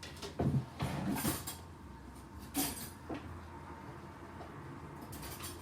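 Short knocks and clatters of kitchen utensils and containers being handled, a cluster about a second in and a few single knocks later.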